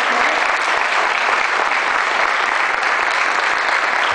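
A large seated audience applauding, a steady round of clapping that holds evenly throughout.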